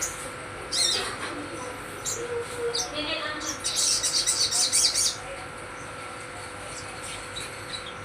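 A songbird singing: a few short high chirps, a quick trill about three seconds in, then a dense, high warbling burst lasting over a second before it falls quiet again.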